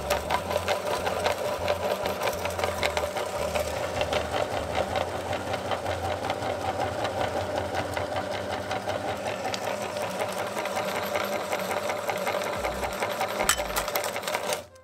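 Metal meat grinder running steadily, its auger crushing a hard-candy lollipop, with constant fine crackling of the candy breaking up. The running stops abruptly near the end.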